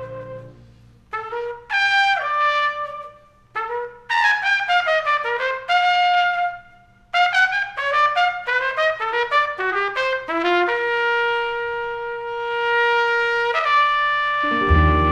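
Jazz trumpet playing unaccompanied: short melodic runs broken by brief pauses, then two long held notes. Near the end the band comes in low underneath the second held note.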